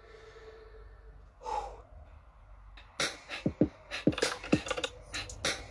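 A short breath about a second and a half in, then from about three seconds in an electronic dance beat: deep kick drums that drop quickly in pitch, with crisp hi-hat and snare hits, several to a second.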